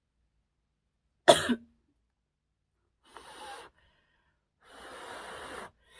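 A person coughs once, sharply and loudly, about a second in. Two longer, quieter breathy sounds follow.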